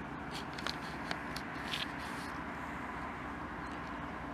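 Steady low rumble of an approaching BNSF freight train, with a few short sharp ticks in the first two seconds.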